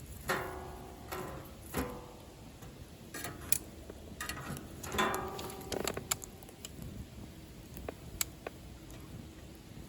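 Wood fire burning in a metal secondary-combustion camp stove, crackling and popping irregularly, with a few louder crackles that ring briefly, about a third of a second in and again around five seconds.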